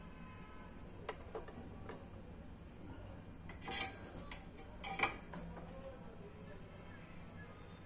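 Light clicks and taps of a small USB memory card reader circuit board being handled and set down on a workbench mat: a few faint clicks early, then two sharper taps near the middle, the second the loudest.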